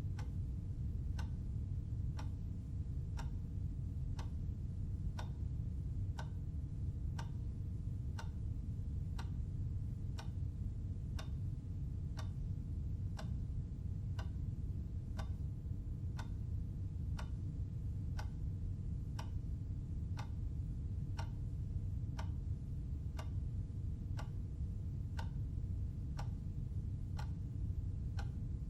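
Clock ticking evenly, about once a second, over a steady low rumble.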